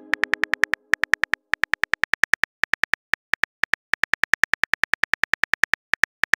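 Chat-app keyboard typing sound effect: rapid short clicks, about ten a second, in runs broken by brief pauses, as a message is typed out. The tail of a sent-message chime fades out in the first half second.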